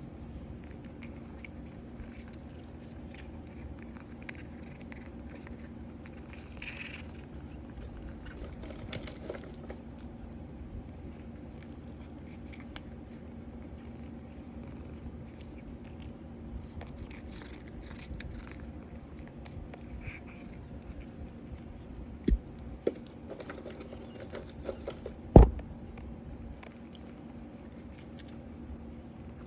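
A cat gnawing and biting at a catnip stick: soft scattered crunching and rustling over a steady low hum, with a few sharp knocks, the loudest about 25 seconds in.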